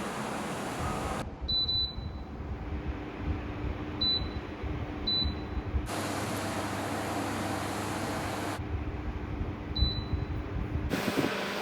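Evaporative air cooler fan running with a steady rush of air and motor hum, its sound changing abruptly several times. Four short, high electronic beeps from its control panel sound about one and a half seconds in, twice around four to five seconds, and near ten seconds, as settings are changed.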